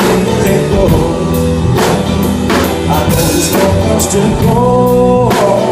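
Blues-rock band playing: drum kit keeping a steady beat of about two hits a second under guitar and a sung lead vocal. A note is held for about a second near the end.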